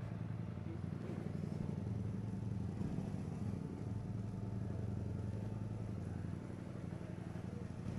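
Yamaha MT-09 motorcycle's inline three-cylinder engine idling steadily, with an even low note that does not rise or fall.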